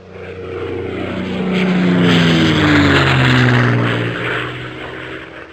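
Propeller airplane flying past: the engine drone swells to a peak about two to three seconds in, its pitch dropping as it passes, then fades away.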